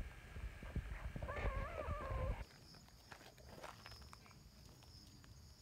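A cat gives one long, wavering meow over low thumps and rustling. Then the sound drops abruptly to a quiet background with a steady high-pitched whine.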